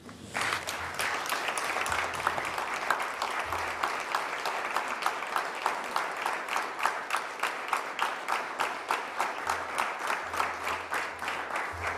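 Applause from the members of a legislative chamber, many people clapping together, with a quick even beat of single claps standing out. It starts just after the speech ends and stops near the end.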